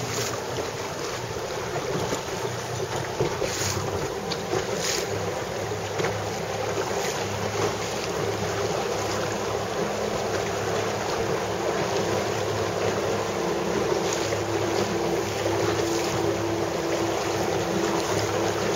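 Wind buffeting the microphone over open water, with water lapping against the hull and a steady low hum underneath. A couple of brief knocks sound about three and a half and five seconds in.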